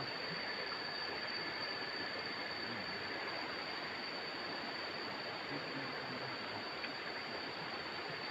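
Steady rushing noise of flowing water, with a constant high-pitched tone over it and a faint voice briefly in the background.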